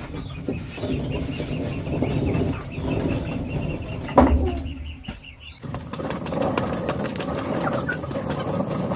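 A wooden stick scraping and digging into packed dry soil, loosening dirt in repeated crunchy scrapes, with one sharp knock about four seconds in.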